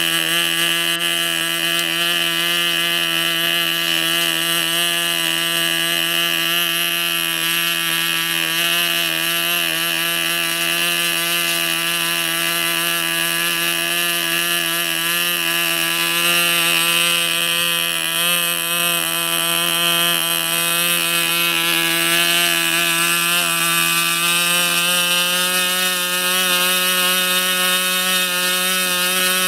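OS 25 FP two-stroke model airplane glow engine running steadily on its break-in run, a loud, even buzz at a constant speed.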